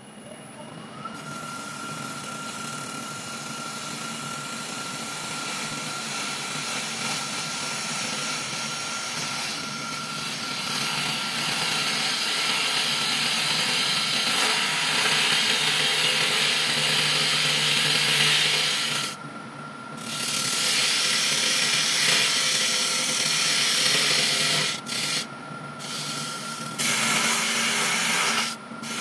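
Wood lathe running with a steady whine that rises in pitch in the first second, while a gouge cuts the spinning monkey puzzle wood blank with a loud rushing hiss of shavings. The cutting grows louder over the first two-thirds and breaks off briefly a few times as the tool comes off the wood.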